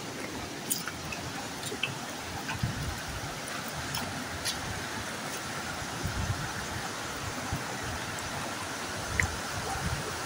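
Steady rush of flowing water, with scattered faint clicks.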